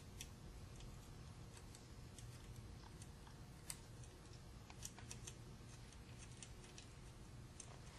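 Faint, scattered small clicks and taps of hands fitting wires and small parts onto an electric motor's cast aluminium end bell, with a low steady room hum underneath.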